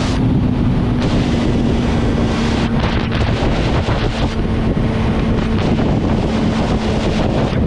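Heavy wind buffeting the microphone on a 2015 Yamaha R6 sport bike ridden at highway speed, with the inline-four engine's drone held at a steady pitch underneath.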